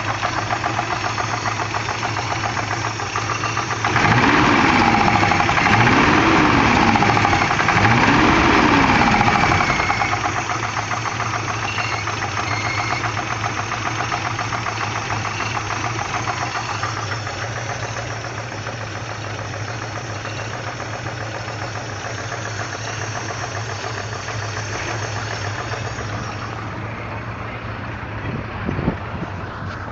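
Peugeot 505 Gamma engine idling, revved gently three times at low revs in the first half, then settling back to a steady idle. The owner is listening for a suspected tapping ("taca taca") noise. A short knock comes near the end.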